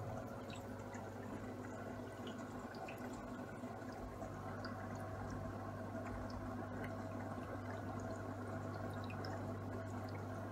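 Aquarium water trickling and dripping, with a steady low hum underneath.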